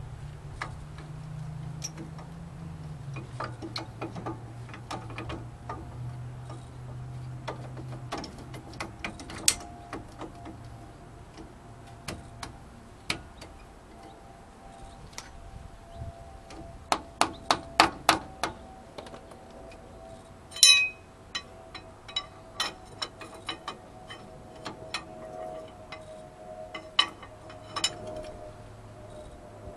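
Scattered metallic clicks and clinks of hand tools and brake parts as a brake caliper is fitted over a new front rotor and its mounting bolt is turned with a wrench. There are quick runs of clicks about halfway through and again a little later, and a low hum fades out in the first several seconds.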